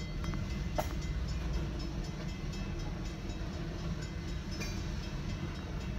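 Freight train of covered hopper cars rolling across a road crossing: a steady low rumble of wheels on the rails, with one sharp click about a second in. Heard from inside a stopped car.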